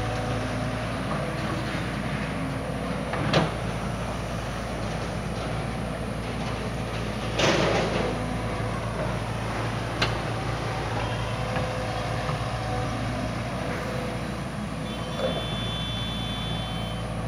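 JCB tracked excavator's diesel engine running steadily, with brief metallic knocks about three seconds and ten seconds in and a longer, louder crunching noise around seven and a half seconds in as the bucket works the earth.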